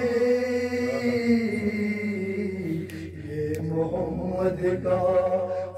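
A man sings a devotional manqabat for Imam Ali into a microphone, drawing out long held notes that waver in pitch. The notes break off briefly about halfway through, then the singing resumes.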